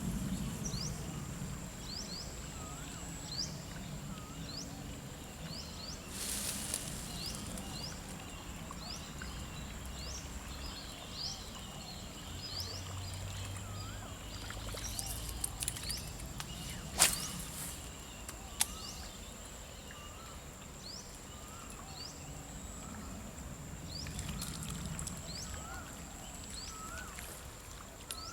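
A bird repeating a short rising chirp about once a second over a steady high insect drone, with a sharp click about two thirds of the way in.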